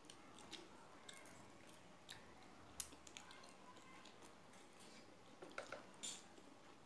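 Near silence with faint eating sounds: quiet chewing and a few light clicks scattered through.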